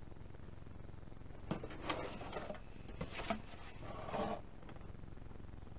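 Lid of a large cardboard model-kit box being lifted and slid off, rubbing and scraping in three short bursts over a faint steady hum.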